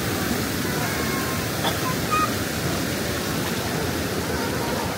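Floodwater rushing in a steady, unbroken noise.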